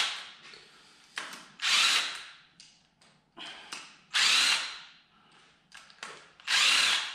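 Cordless drill-driver spinning out the rocker arm bolts on an LS 4.8 V8's cylinder head. It runs in short spurts about every two and a half seconds, each a brief blip of the trigger followed by a half-second spin, one bolt after another.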